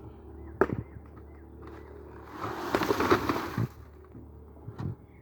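Construction work: a sharp knock about half a second in, then about a second of scraping, rushing noise, with a few lighter knocks.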